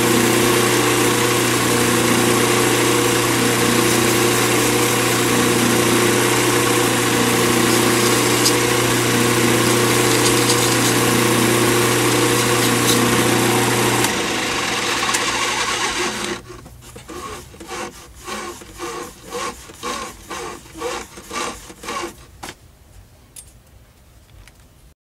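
Lathe motor running with a resin pen blank spinning, a pad held against the turning blank and rubbing it smooth. The lathe stops about sixteen seconds in, leaving a string of faint regular knocks, about two a second, that fade out.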